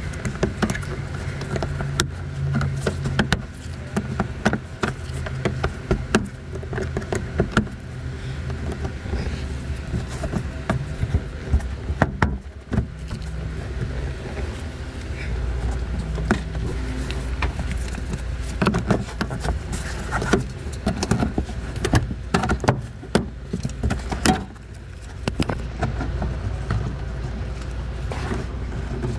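Irregular clicks and knocks of gloved hands prying and handling plastic interior trim around the headliner, over a steady low hum.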